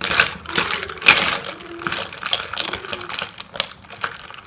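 A long spoon stirring ice cubes and cut fruit in a pitcher of sangria, the ice clinking against the spoon and the pitcher's sides in quick, irregular clicks.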